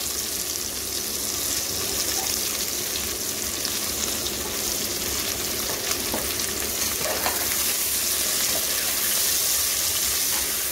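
Sliced onions frying in hot oil in an aluminium pressure cooker, a steady sizzle as they are sautéed to soften, with a steel ladle stirring through them.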